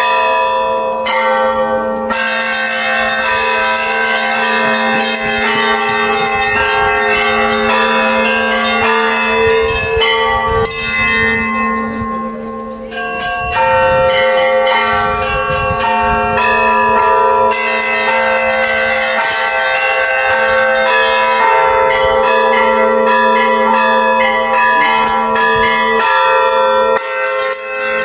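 Russian Orthodox church bells ringing a festal peal. Many smaller bells chime quickly in overlapping strokes over the steady hum of the larger bells. The higher bells drop out briefly about halfway through, then come back in.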